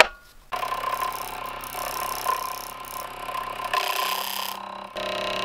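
Wood lathe starting about half a second in and running with a steady motor whine, spinning a polycarbonate gear blank mounted on a faceplate. Just under four seconds in, a tool cuts at the edge of the spinning blank, adding a hissing scrape for under a second.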